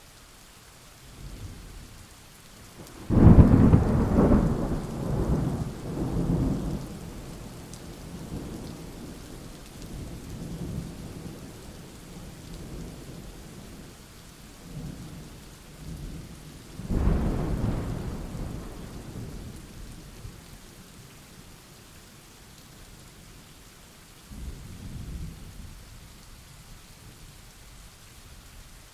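Steady rain with thunder: a loud crack about three seconds in that rumbles on for several seconds, a second peal about seventeen seconds in, and a fainter rumble near the end.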